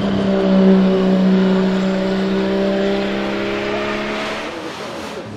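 1977 Porsche 935/2.0 'Baby' race car's 1.4-litre single-turbo flat-six running at a steady, unhurried note as it drives past. The pitch sinks slightly and the sound fades as the car moves away.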